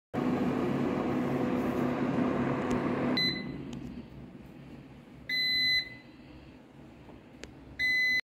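AGARO air fryer oven's fan running with a steady whir, then cutting out about three seconds in with a short beep; two longer single-tone beeps follow. This is the unit's end-of-cooking alert.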